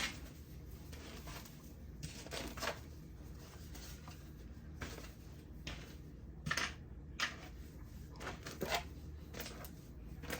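Scattered light clicks and rustles of wigs and pins being handled and hung up, over a steady low hum.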